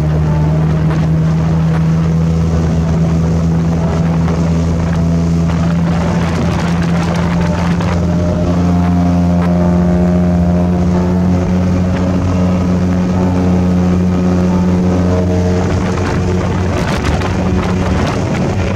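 Speedboat engine running steadily as the boat moves across open sea, its pitch shifting slightly a few times, with wind on the microphone.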